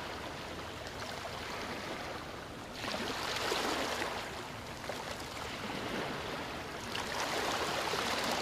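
Steady rushing of flowing water, swelling a little about three seconds in and again near the end.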